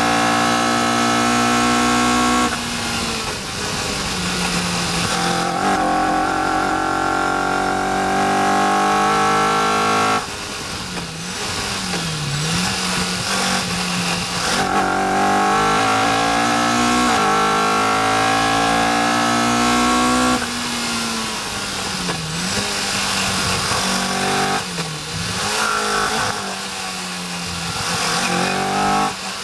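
Caterham R400's engine heard from inside the open cockpit at speed on track, revving hard. The revs climb in long runs and drop sharply about 2.5, 10 and 20 seconds in, with a few quick dips and recoveries between.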